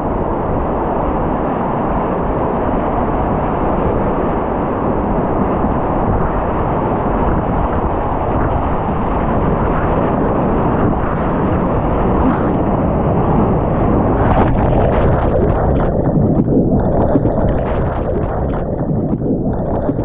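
Loud rushing of Class V whitewater rapids, with wind buffeting the microphone. About fourteen seconds in the sound turns choppy and muffled as waves break over the camera and it goes under the water.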